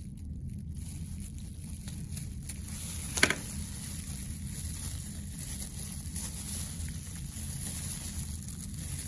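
Steady low room hum, with one sharp click from the dissecting scissors about three seconds in.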